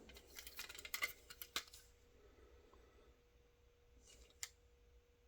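Plastic LEGO parts clicking and rattling as the model is handled, a quick run of light clicks in the first two seconds, then a soft rustle and a single click about four and a half seconds in.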